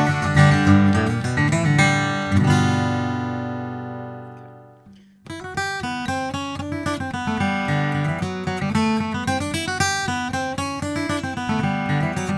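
Taylor Presentation Series PS14ce steel-string acoustic guitar, with a sinker redwood top and Macassar ebony back and sides, being played. About two seconds in, a chord is struck and left to ring, dying away for about three seconds. Then the playing starts again with a run of changing notes and chords.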